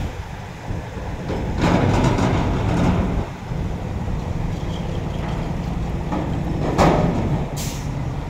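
Heavy diesel engines running steadily, with a louder rush of noise about two seconds in, a sharp knock near seven seconds in and a brief hiss just after.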